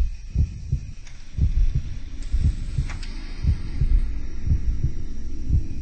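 Heartbeat sound: low double thumps repeating about once a second, over a faint steady hiss.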